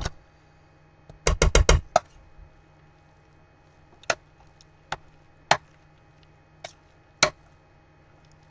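A spoon knocking and clinking against a mixing bowl while stirring chicken salad: a quick run of about five knocks a little over a second in, then single knocks roughly a second apart.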